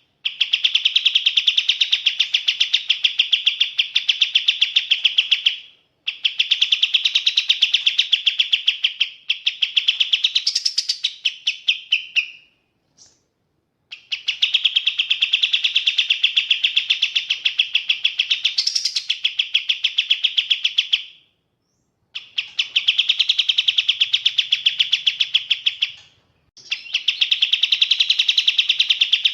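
A kapas tembak songbird singing long, fast-pulsing trills in bouts of several seconds with brief pauses between them. A higher, rising note breaks in twice.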